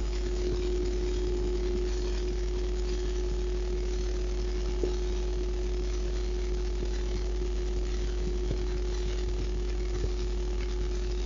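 A woman's heartbeat, beating strongly, picked up by a microphone held close to the chest, under a steady low hum.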